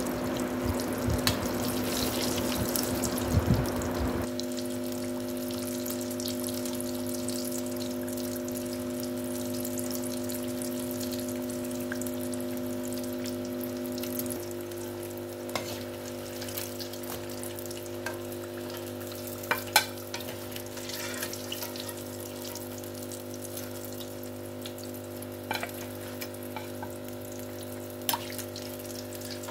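Samosas deep-frying in hot oil in a karahi: a steady sizzle, stronger for the first few seconds, then settling. A few light clicks come from a metal slotted skimmer against the pan.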